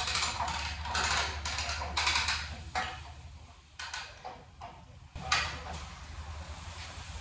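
A steel chain rattling and clinking in short bursts as it is handled and hooked around an engine hanging from an engine hoist, over a steady low hum. The loudest clank comes about five seconds in.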